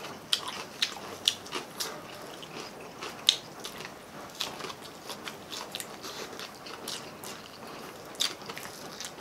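Close-miked eating: crunching bites and chewing of crispy fried pork, fried chicken and lettuce, heard as irregular sharp crunches and crackles, one louder about three seconds in.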